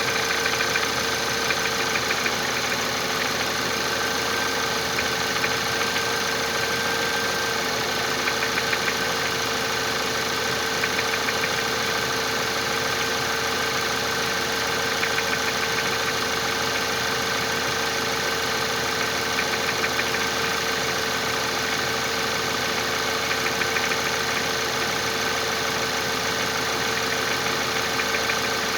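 Audi 1.8 TFSI (CJEB) turbocharged four-cylinder petrol engine idling steadily with a repeating knock, the fault the engine is being recorded for.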